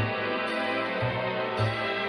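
Background music: a gentle instrumental track with sustained chords over a steady low bass pulse.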